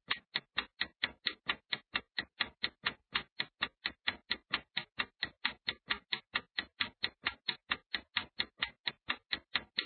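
Clock-ticking sound effect for a countdown timer: a steady, even run of sharp ticks, about four a second.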